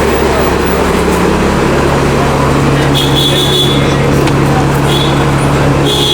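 City street traffic with a vehicle engine running close by as a steady low drone, and brief high-pitched tones about halfway through and again near the end.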